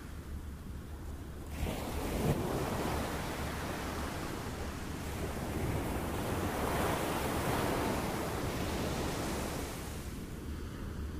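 Ocean waves washing in and drawing back in slow surges, one swelling about two seconds in and a longer one through the middle.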